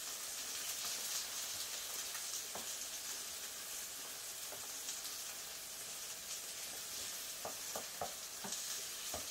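Eggs frying on a greased griddle, a steady high sizzle, with a few light clicks of a whisk folding them and breaking up the yolks, mostly near the end.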